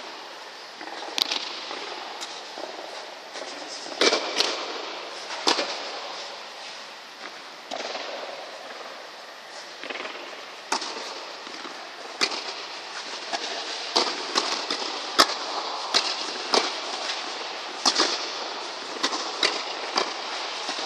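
Tennis rally on a clay court: sharp, irregular pops of rackets striking the ball and the ball bouncing, coming more often in the second half and echoing in an air-dome hall.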